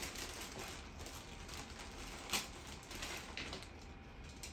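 Clear plastic packaging rustling and crinkling as it is opened, with light clicks of the plastic seed discs being handled. One sharper click about two seconds in.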